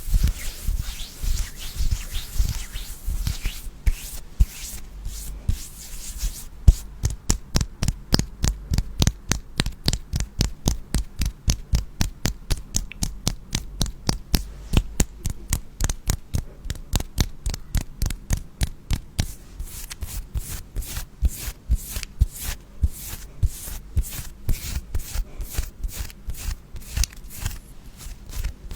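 Rustling for the first few seconds, then steady rhythmic tapping, about four crisp taps a second.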